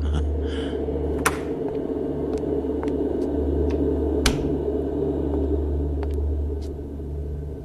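Low, steady rumbling drone of a dramatic underscore, with a few sharp clicks; the loudest are about a second in and just past four seconds.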